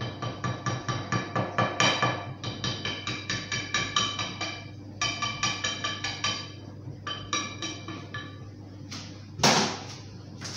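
Metal wire whisk knocking rapidly against a ceramic mixing bowl while stirring flour into a soft bread dough, about five ringing clinks a second, in three runs with brief pauses. One louder clatter near the end.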